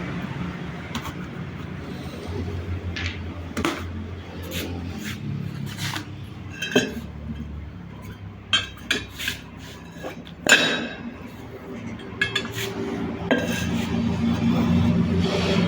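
Metal tools clinking and knocking against metal, a dozen or so irregular strikes with a short ring, the loudest about ten and a half seconds in, over a steady low engine hum.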